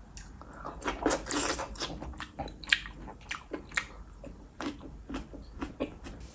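A person biting and chewing a cooked king oyster mushroom and a small red chili pepper. A burst of crunching about a second in, then sharp, wet chewing crackles roughly twice a second.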